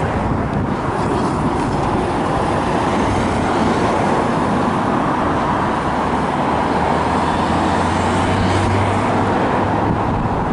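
Road traffic, with cars driving by. A low, steady engine hum comes in about three seconds in and fades near the end.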